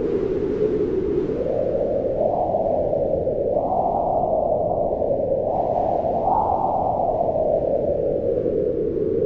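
Howling wind blowing steadily, its pitch swelling up and sinking back with each gust, several times over.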